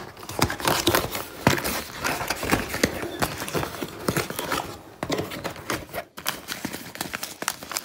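Hands opening a small cardboard box and handling the plastic-wrapped rice bag inside: an irregular run of cardboard clicks, scrapes and plastic crinkling, with a brief lull about six seconds in.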